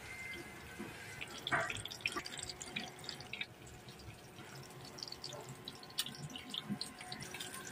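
Hot cooking oil sizzling in a pan, with scattered small crackles and pops.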